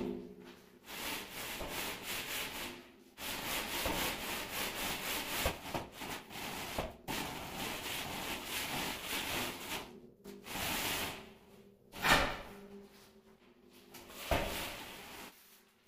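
A long straightedge dragged back and forth over a bed of damp sand-and-cement mortar: gritty scraping in long strokes with short pauses, screeding the mortar bed level. One short, louder scrape or knock comes about three-quarters of the way through.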